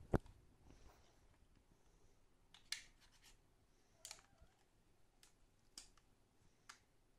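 Scattered light clicks and taps of small hard objects being handled, about five in all, the sharpest right at the start.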